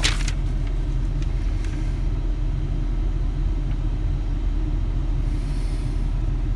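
Ford F-350 pickup's engine idling, a steady low rumble heard from inside the cab, with a sharp knock of handling right at the start.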